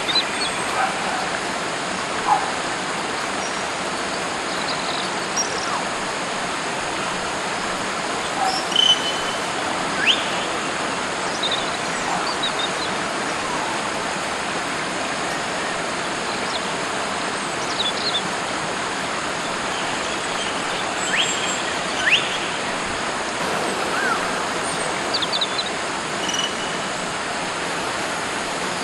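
Wild birds giving short, sharp whistled calls, scattered and spaced several seconds apart, over a steady hiss.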